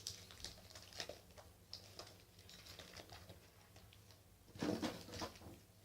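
Crinkling and rustling of plastic sweet wrappers as individually wrapped chewy sweets are unwrapped by hand: many small crackles, with a louder rustle about four and a half seconds in.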